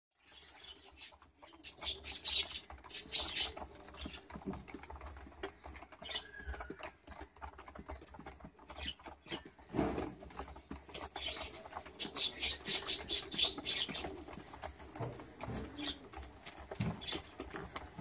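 Domestic pigeons in a coop: two bursts of rapid wing-flapping clatter, about two seconds in and again about eleven seconds in, over low cooing.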